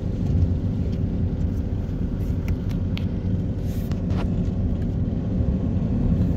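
Inside a moving car on a wet street: a steady low rumble of engine and tyres, with a light hum and a few faint ticks.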